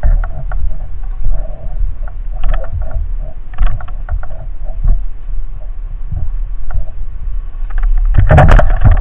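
Muffled handling noise from a speargun-mounted action camera carried on foot: low rumble with irregular soft knocks and rubs, then a louder burst of knocking and scraping about eight seconds in as the gun is swung about.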